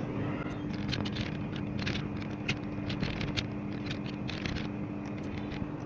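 Typing on a computer keyboard: irregular key clicks, with a steady low electrical hum underneath.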